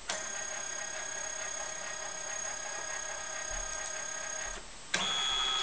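Canon 9000F flatbed scanner's scan head motor whining steadily as it scans a 300 DPI grayscale page. About five seconds in, it breaks off briefly and changes to a louder whine at a different pitch.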